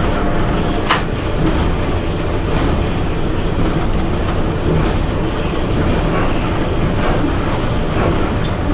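Running noise inside the cab of an EP1 electric locomotive moving at speed: a steady, dense rumble with a few sharp clicks from the wheels and running gear.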